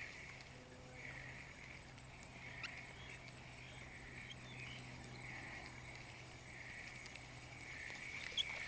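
Faint repeated calling, pulsing about once a second, over a steady low hum.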